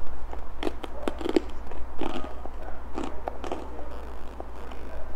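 A child chewing a mouthful of Hawkins Cheezies, hard crunchy cornmeal cheese snacks, with irregular loud crunches.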